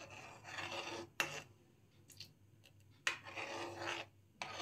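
Steel ladle scraping across the bottom of a metal kadai while stirring milk as it thickens with custard. It comes in uneven strokes: a long one in the first second, a short one, a quieter pause with a few light clicks, then another long scrape and a short one near the end.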